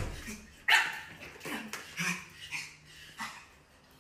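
A small dog barking: several short, sharp yaps, the loudest about a second in and about two seconds in.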